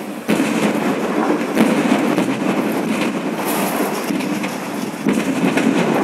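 LPG gas cylinders bursting in a warehouse fire: sudden blasts about a third of a second in, at about a second and a half, and about five seconds in. Between the blasts there is a continuous rushing noise from the fire.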